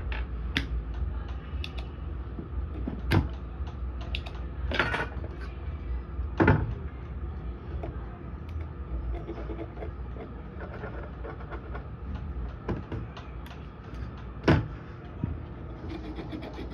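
Knocks, clacks and scrapes of a charger circuit board and tools being handled and set down on a workbench, a few sharper knocks standing out, over a steady low hum.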